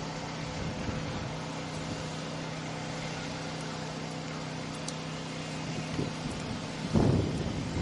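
Steady hum of a vehicle running, with a louder rush of wind on the microphone about seven seconds in.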